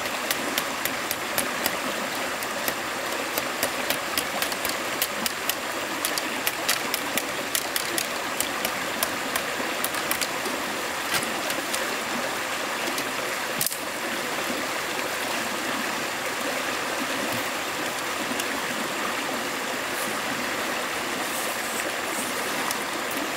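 Steady rush of flowing water. Over it, sharp clicks or taps come two to three times a second for the first half, then only now and then.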